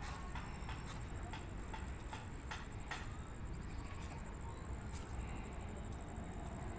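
Passenger train rolling slowly away into the station: a distant low rumble with sharp clicks every second or so, and a faint steady high whine.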